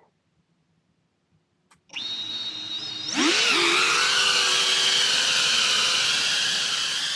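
Brushless motors and propellers of a Diatone Taycan C25 cinewhoop drone spinning up about two seconds in, then throttling up with a rising whine about a second later and holding a steady high whine over a rush of propeller noise.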